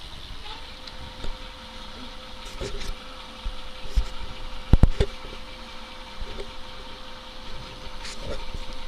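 Addmotor M60 e-bike's rear hub motor whining at a steady pitch as the lifted rear wheel spins under throttle. A couple of sharp clicks come about halfway through.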